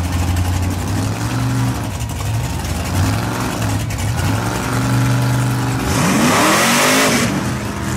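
Engines of two lifted mega trucks revving hard under load in a truck tug of war, the pitch rising and falling. About six seconds in, one engine revs up sharply along with a loud rushing noise for about a second.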